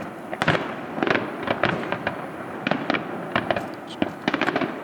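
Fireworks finale: a rapid barrage of shell bursts and crackling reports, coming in dense clusters about once a second over a constant crackle.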